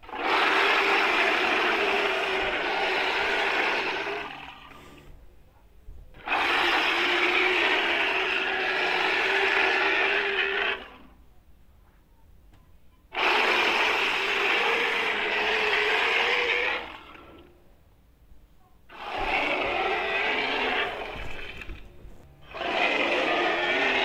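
Tyrannosaurus rex sound effect: a series of long roar-like calls, each a noisy, hoarse sound with a steady low tone held through it, about four seconds long with short silent pauses between. The last two calls near the end are shorter and come closer together.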